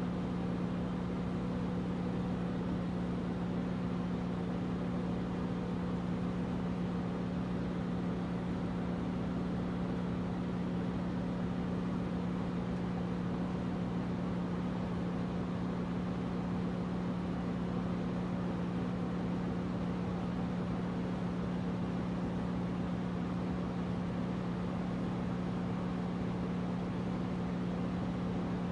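Air conditioner running steadily: a constant low hum over an even rush of air, with no change in speed or level.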